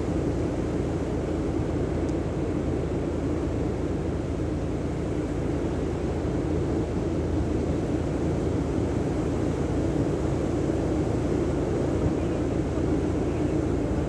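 Steady rushing of sea surf and wind on the microphone, an even low noise with no distinct events.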